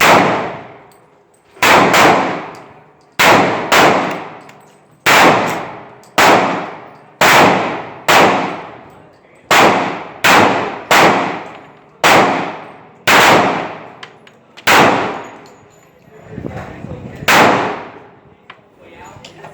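Ruger P90 .45 ACP semi-automatic pistol firing a long string of shots, about fifteen at an uneven pace of roughly one a second, each crack ringing out and fading over about a second.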